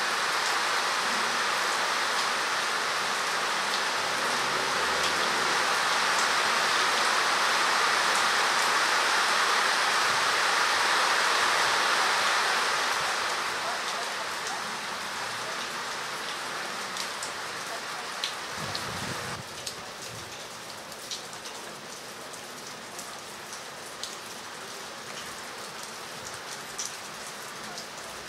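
Steady rain hiss, louder for the first dozen seconds and then quieter, with scattered sharp drop ticks in the second half.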